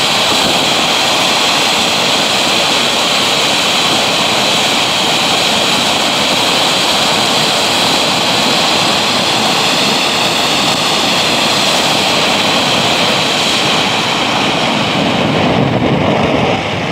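Läubli Elfenzauber conic firework fountain burning with a steady, loud rushing hiss as it jets sparks upward. Near the end the hiss turns deeper and fuller.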